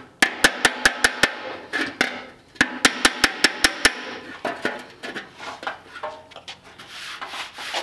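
Auto body hammer tapping a ridge on a steel fender, with a dolly pushed up from behind, in quick runs of sharp ringing taps at about five a second, with a short pause between runs. The taps give way to fainter, softer knocks over the last few seconds. The ring marks the panel touching the dolly as the low spot comes up.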